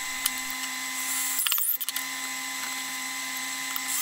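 Power drill driving a screw through a thin plastic sheet into a wooden block, its motor running steadily, with a brief burst of high hiss between one and two seconds in.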